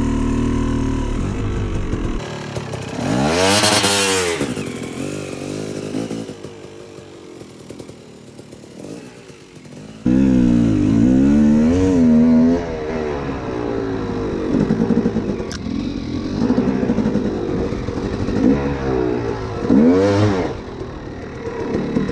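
250 two-stroke dirt bike engine being ridden, its revs repeatedly climbing and falling as the throttle is worked. The engine drops back to a quieter, lower run for a few seconds mid-way, then opens up suddenly and loudly about ten seconds in.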